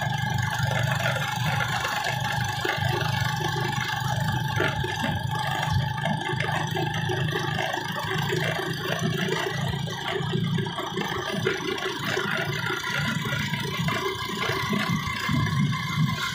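Small motorcycle engine running steadily while the bike is ridden, heard from the rider's seat.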